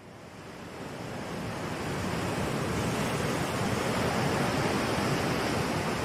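Rushing sound of sea surf, fading in over the first few seconds and then holding steady.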